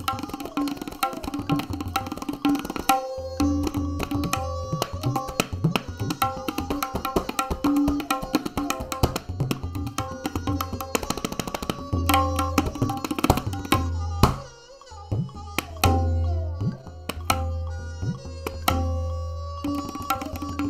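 Tabla solo playing a gat: dense, rapid strokes on the treble drum with resonant low notes from the bass drum, over a repeating melodic lehra accompaniment.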